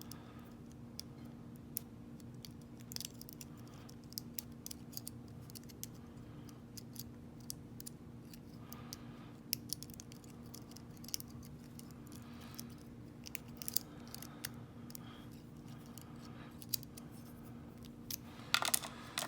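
Faint, irregular metallic clicks and scrapes of a lock pick working the spring-loaded pins of a Lockwood 30mm laminated padlock under tension, with a louder cluster of clicks near the end. A faint steady hum sits underneath.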